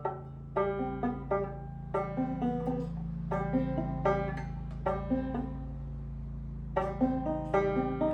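Banjo being picked, a steady run of bright plucked notes and chords ringing out.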